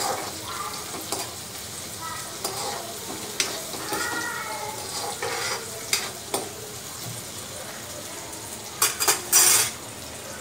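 Sliced onions and green chillies sizzling in hot oil in a wok, frying toward golden brown, while a spatula stirs them with scraping clicks against the pan. A quick run of loud knocks comes near the end.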